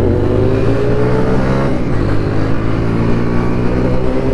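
Motorcycle engine accelerating under way, its pitch rising steadily, dropping with an upshift about two seconds in, then climbing again.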